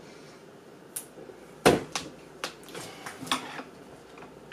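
Handling noise on a wooden tabletop: a string of short knocks and clicks, the loudest a dull thump about a second and a half in, with some rustling near the middle, as the cardboard box and small objects are picked up and set down.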